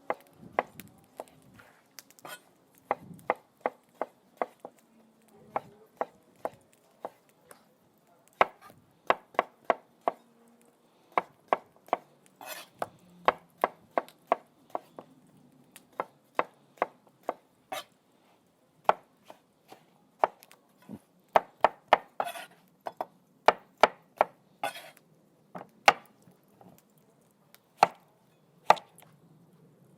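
A knife dicing salad vegetables on a cutting board: a long series of sharp, separate chops, about one to three a second, in runs with short pauses between them.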